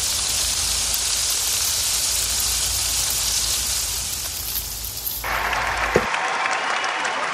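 Pork spare ribs sizzling on a barbecue grill, a steady hiss. About five seconds in, applause comes in over it, and about a second later the grill lid shuts with a clunk and the sizzle stops.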